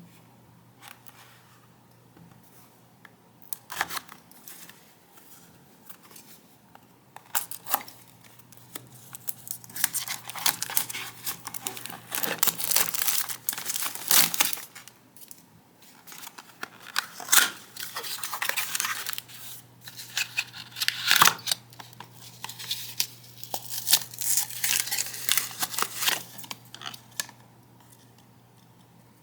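Product packaging being torn open and handled by hand: irregular crinkling and tearing of wrapping, sparse at first, then busy and continuous from about a third of the way in until near the end.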